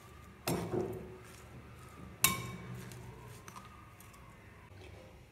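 A spoon stirring food in a glass mixing bowl and striking the glass: two sharp ringing clinks, about half a second and about two and a quarter seconds in, the second the louder, then a fainter tick.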